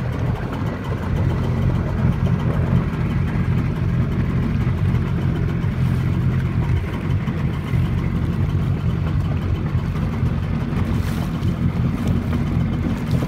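Jet ski engine running steadily at low throttle on open water, a continuous low drone.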